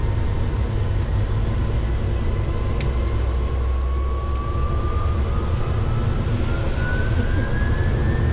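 Single-engine propeller aircraft's engine and propeller running on the ground, heard from inside the cockpit: a steady low rumble, with a whine that rises steadily in pitch from about three seconds in.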